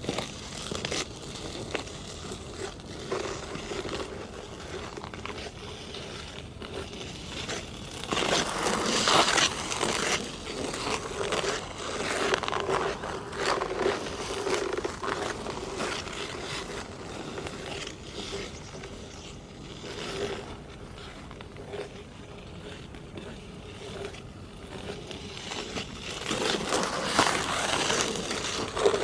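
Sharp metal ice-skate blades scraping and cutting across hard natural black ice in uneven, crisp strokes, louder about a third of the way in and again near the end.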